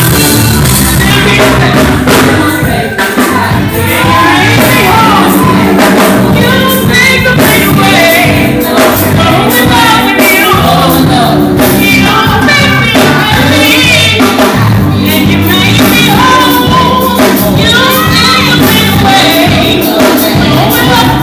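Loud gospel music with singing over a steady accompaniment.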